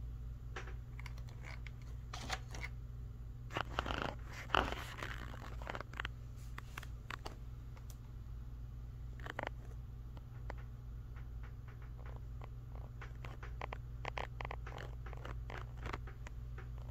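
N scale model train running on its layout: a steady low hum from the locomotive motors with irregular light clicking of the wheels over rail joints and turnouts, thickening into a louder flurry of clicks about four seconds in.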